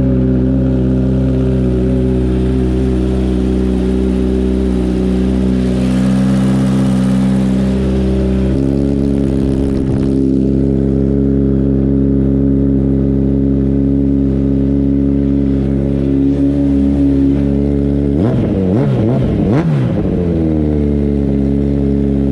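2021 Kawasaki Z900's inline-four engine idling through a newly fitted Akrapovic full-system exhaust on its first test start. About 18 seconds in it is revved once or twice, the pitch rising and falling back to idle.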